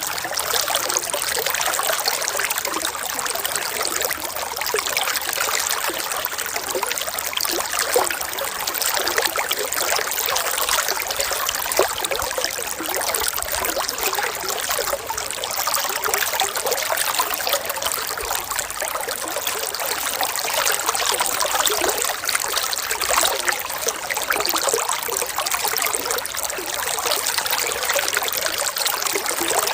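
Running water trickling steadily, like a small stream: a continuous splashing hiss with fine flickering detail and no pauses or changes.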